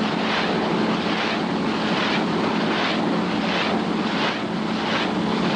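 Fairey Rotodyne running on the ground with its rotor turning: a steady engine hum under a rhythmic whooshing that swells about every three-quarters of a second.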